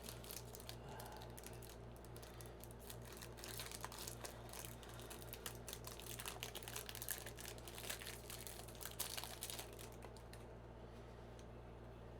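Packaging and boxed items being handled: crinkling and rustling with many small clicks and taps, over a low steady hum. The handling noise thins out about ten seconds in.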